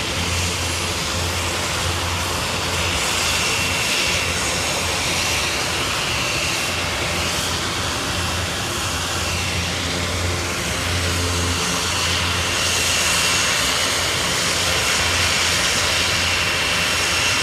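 Engines of a large Airbus aircraft in a flying display, running steadily with a low drone and a thin high whine, growing a little louder in the last few seconds.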